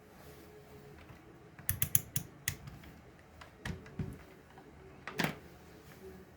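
Sharp clicks and taps of small hard parts being handled while a robot is taken apart: a quick run of about five clicks near two seconds in, two duller knocks around four seconds, and one more click about five seconds in.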